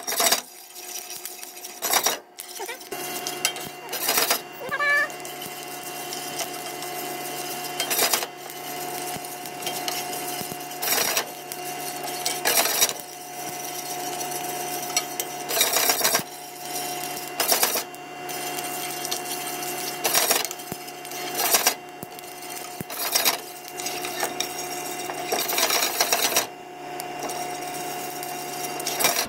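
Wooden spoon stirring roasting coffee beans in a dry metal pan, the beans rattling and scraping across the pan in repeated strokes every second or two. Underneath is the steady hum of a kitchen fan.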